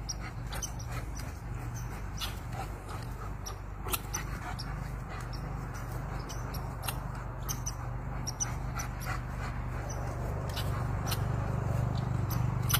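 A German shepherd dog making dog sounds as it plays, with irregular sharp clicks and a steady low hum underneath.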